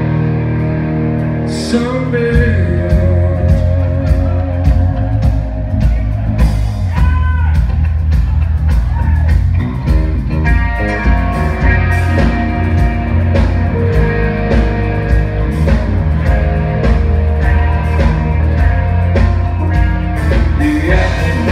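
Live Southern rock band playing with electric guitars, electric bass and a drum kit. The drums and bass come in full about two seconds in, and the band then keeps a steady beat.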